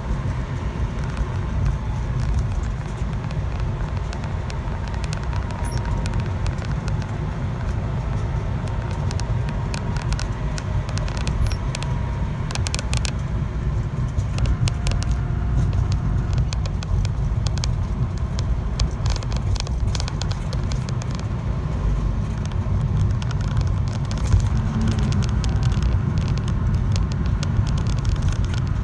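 A vehicle in motion with a steady low rumble and scattered sharp ticks and clicks, the abnormal noise ('異音') being recorded.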